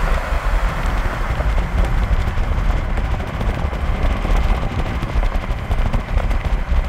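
Steady rush of wind and road noise from a car travelling at speed, with heavy low buffeting of wind against the microphone.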